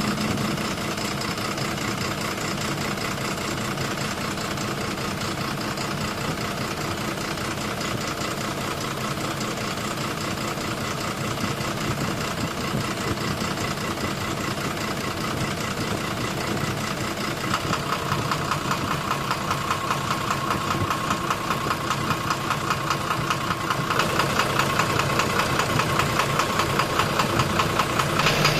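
12-M FE engine running with a fast, even knock, the knocking fault being diagnosed. It gets louder about two-thirds of the way through and again near the end.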